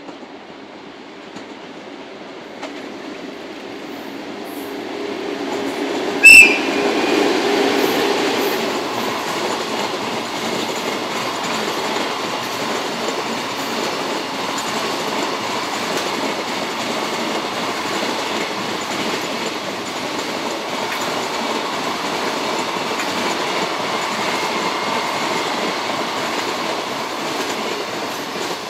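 Two ED79 electric locomotives approaching and a long container freight train passing close by, its wheels rumbling steadily over the rails, growing louder over the first few seconds and dropping away as the last wagon clears at the end. A sudden sharp, very loud bang about six seconds in is the loudest moment.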